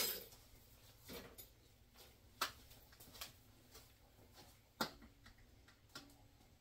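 A few faint, sharp clinks and knocks of canning gear being handled: a plastic canning funnel set on a glass jar and a metal ladle dipped into a steel pot of pickling brine. The sharpest clink comes right at the start, with another about two and a half seconds in and another near five seconds.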